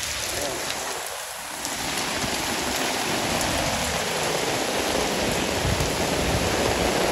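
Heavy rain falling steadily in a downpour, an even hiss.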